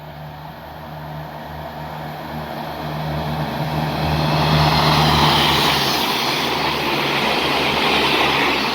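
Passenger train approaching and running past, its rushing wheel and motor noise growing louder over the first few seconds and then holding, over a steady low hum.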